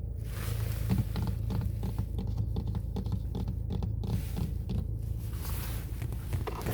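Close-up ASMR scratching and rustling made by hand, a quick irregular run of small scrapes and crackles, over the steady low rumble of a car driving.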